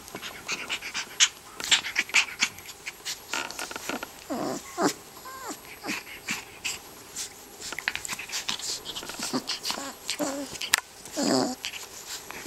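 Rough collie puppy making short whimpers and small play growls as it mouths and licks a hand, over many sharp little clicks and snuffles; the loudest whine comes near the end.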